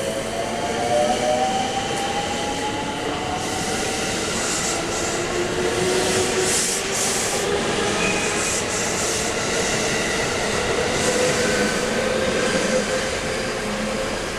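Electric train running through the station platform, its motor whine slowly rising as it gathers speed, over a steady rumble of wheels on rail with patches of high hiss and faint wheel squeal.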